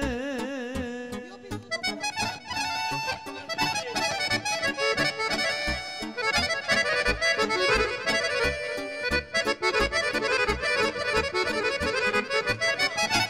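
Accordion playing fast instrumental runs over a regular low bass beat in a Balkan folk song. A held, wavering note dies away about a second and a half in.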